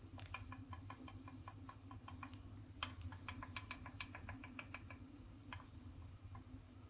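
Split-flap wall clock's mechanism clicking fast and faintly, about seven clicks a second, in two runs of about two seconds each, then a few single clicks near the end.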